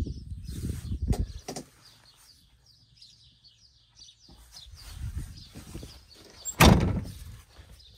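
Rustling handling and footstep noise, then about two-thirds of the way through a single loud slam with a short ring: the cab door of a Polaris Ranger side-by-side being shut. Birds chirp faintly throughout.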